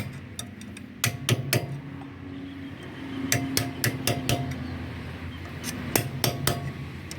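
Light hammer taps seating the greased dust cap (grease cap) onto the front wheel hub over a freshly replaced wheel bearing, sharp metallic knocks in short runs of a few taps with pauses between.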